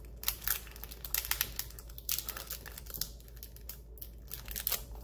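Packaging crinkling and tearing in irregular crackles as it is picked and peeled open by hand.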